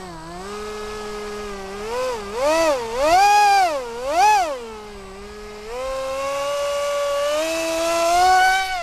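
Brushless electric motor and small cut-down propeller of a foam RC F-22 Raptor jet whining under throttle for a hand launch. The pitch swells up and down about four times as the throttle is pulsed, then holds higher and climbs steadily before cutting off suddenly at the end.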